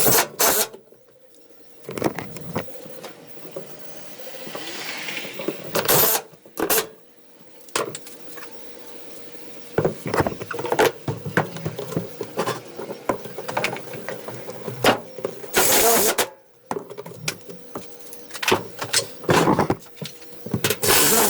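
Cordless drill driving sheet metal screws through plywood into a steel lathe stand: short runs of the motor with knocks and clatter of handling in between.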